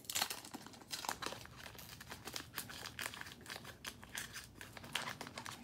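Crinkly wrapper of a baseball card pack being torn open and handled: a quiet run of irregular crackles and rustles.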